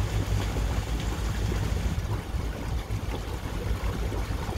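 Steady rushing noise of a boat under way, water moving along the hull and wind, over a strong low rumble that flickers in level.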